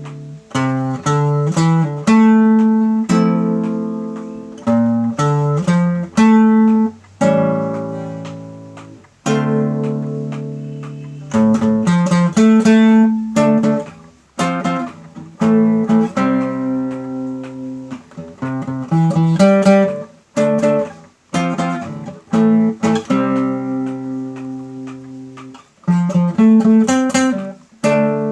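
Instrumental music on solo guitar: plucked chords and short runs of notes, each chord struck and left to ring out and fade before the next.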